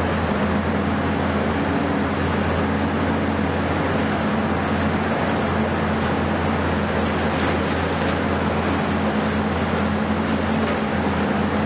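Diesel engines of a Hitachi 870 long-reach demolition excavator and a smaller excavator running steadily: a constant low hum under an even wash of machine noise.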